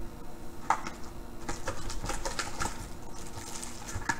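Foil-wrapped trading card packs crinkling and rustling as hands lift them out of an opened cardboard box, a run of short crackles and small clicks.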